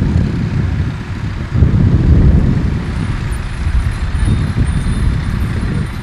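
Wind buffeting the microphone: a loud, irregular low rumble that swells and dips.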